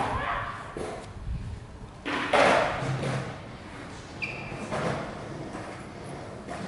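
Skateboard knocks and clacks on concrete with a few footsteps. The loudest knock comes about two seconds in, and there is a brief high squeak about four seconds in.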